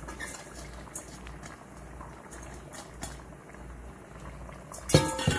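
Pot of rice-and-peas cooking liquid bubbling at the boil while washed rice is tipped in from a metal bowl, with small ticks and patters. About five seconds in comes a loud, ringing metal clang.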